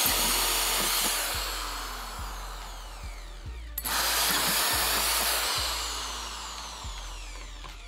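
Corded electric drill with a 2-inch hole saw cutting through a plastic bucket lid, in two runs, one per hole. The break between them comes about halfway through. Each run starts loud and fades as the drill winds down.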